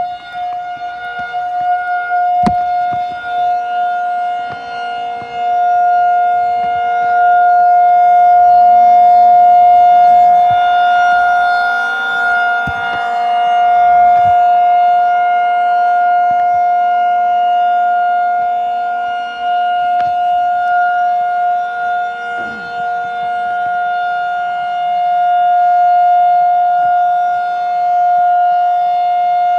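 Federal Signal 2001-SRN electromechanical outdoor warning siren sounding a steady tone at full speed, its loudness slowly swelling and fading. A sharp click sounds about two seconds in.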